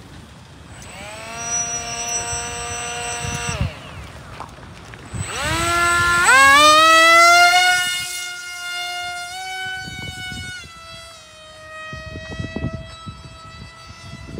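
Electric motor of a foam jet-style RC model plane whining in flight. The pitch climbs with the throttle about a second in and dies away near four seconds. It climbs again at about five to six seconds into the loudest pass, then settles into a steadier, lower whine that steps down a little after nine seconds.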